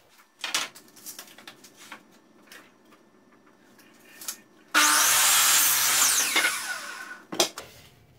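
A 1x6 pine board is set on a sliding miter saw with a few light knocks. About halfway through, the saw starts suddenly and crosscuts the board, then its blade winds down with a falling whine. A sharp knock comes near the end.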